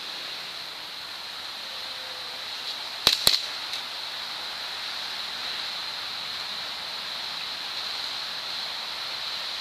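Two sharp snaps of airsoft gunfire about a quarter second apart, a few seconds in, over a steady high hiss.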